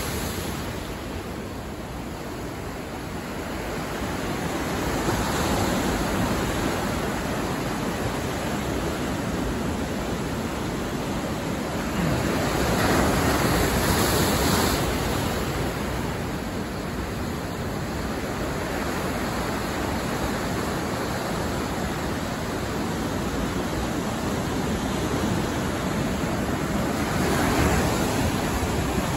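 Big surf breaking on the shore: a continuous rush of breaking and washing waves that swells three times into louder crashes, the loudest about halfway through. The waves are closing out, breaking all along their length at once.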